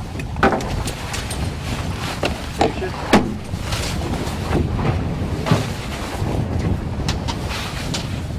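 Steady low rumble of wind buffeting the microphone on a boat at sea, with scattered short knocks and rustles of handling on deck.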